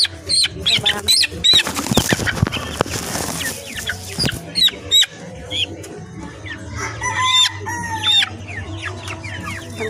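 Chickens clucking with many short, high peeping calls. A noisy flurry like wings flapping comes about two seconds in, and a longer drawn-out falling call follows near the end.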